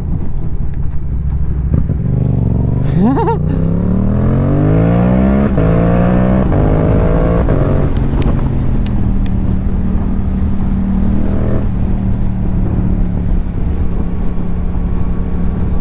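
Yamaha YZF-R7's 689 cc parallel-twin engine through a Yoshimura R77 exhaust, accelerating through the gears. Its pitch climbs and drops back in steps at each upshift, then it settles to a steady, lower drone for the second half.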